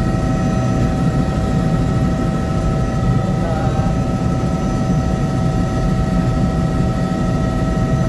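Helicopter cabin noise in steady flight: a loud, even low rumble from the rotor and engine, with several steady high whining tones over it.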